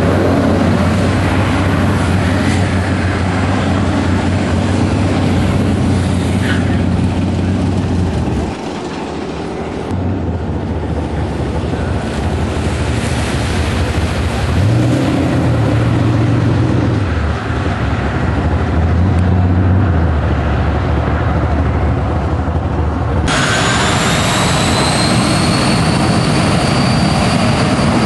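A Toyota Aristo (JZS147) drag car's engine revving, dropping out briefly, then revving hard again as it runs. Near the end a jet engine's whine starts suddenly and rises in pitch as the turbine of the jet-powered Mazda RX-7 spools up.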